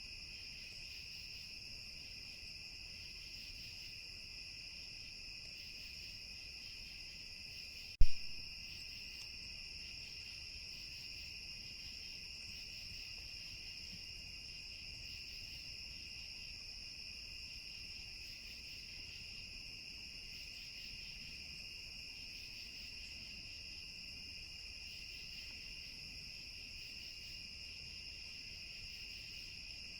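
Steady chorus of crickets and other insects: an even, high trill with a fainter call pulsing slowly beneath it. One sharp, loud knock sounds about eight seconds in.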